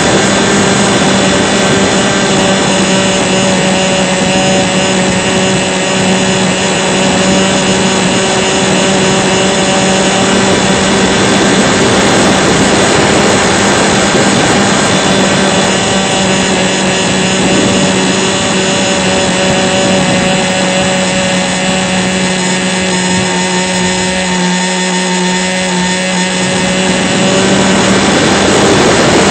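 Radio-controlled model airplane's motor and propeller running at a steady pitch, heard from a camera on board the plane, with wind rush over it. The note changes near the end.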